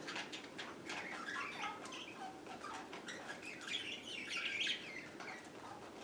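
Budgerigars chattering with quick, wavering chirps and warbles, busiest a little past halfway.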